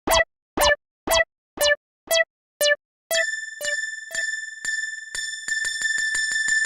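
Electronic level-crossing warning bell ringing "kan-kan", about two strokes a second. About three seconds in, a different crossing alarm takes over, with a steady high ringing tone under its strikes, which speed up to about five a second near the end.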